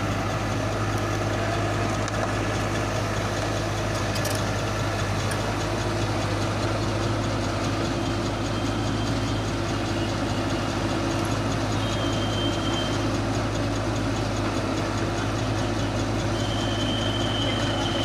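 Komatsu PC71 excavator's diesel engine running steadily, with a brief faint high whine twice in the second half.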